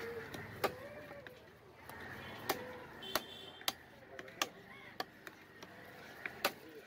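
A heavy cleaver chopping fish on a wooden log chopping block: about eight sharp chops at irregular intervals, a second or less apart, with two close together near the end.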